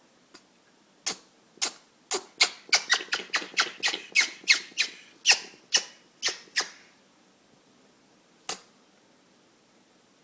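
Eclectus parrot in a sneezing fit: a rapid series of short, sharp sneezes, about seventeen in some six seconds and coming two or three a second at the height, then one more sneeze after a pause near the end.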